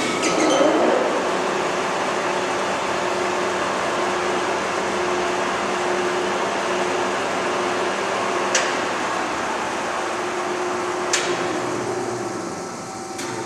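LeBlond Regal Servo-Shift engine lathe running under power, its 10 HP drive and spindle gearing giving a steady whir with a held tone. A brief sweep in pitch comes just after the start, and there are two sharp clicks in the second half.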